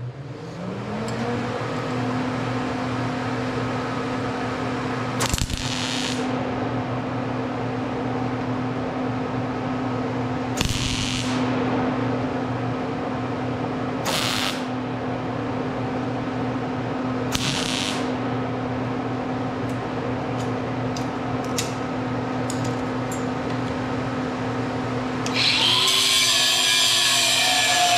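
MIG welder tack-welding a steel rod onto a spring in four short crackling bursts spread over the first two-thirds, over a steady hum that starts about a second in. Near the end an angle grinder starts up and runs louder, grinding off the excess rod.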